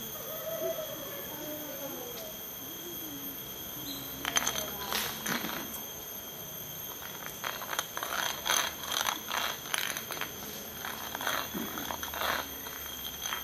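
Glass lightbulb being scraped against concrete by a long-tailed macaque: a run of short gritty scrapes that starts about four seconds in and comes in quick bursts until near the end. Faint voices can be heard in the first few seconds.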